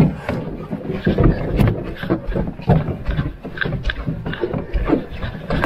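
Footsteps on a dirt portage trail with a carried carbon-fibre canoe and its gear knocking and rattling against the hull: an irregular run of thuds and knocks, a few a second.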